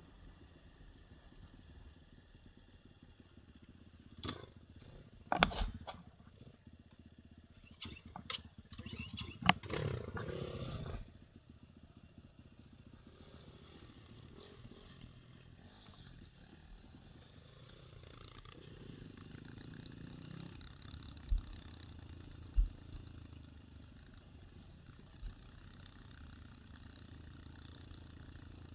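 Enduro motorcycle engines running on a trail ride, a low steady rumble throughout. Between about four and eleven seconds in there are several sharp knocks and a louder stretch, and two more sharp thumps come about 21 and 22 seconds in.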